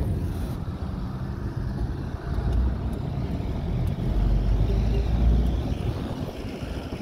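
Low engine and road rumble of a moving car heard from inside the cabin, swelling twice as the car drives on.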